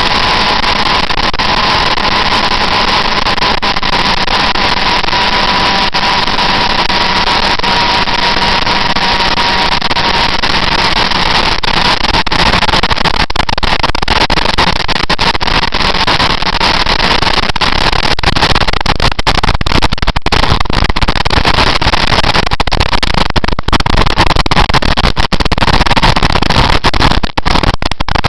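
Motorcycle riding at speed, heard from an on-board camera: wind rushing over the microphone mixed with engine noise, with a steady engine whine for the first ten seconds or so. The wind buffeting grows rougher and louder in the second half.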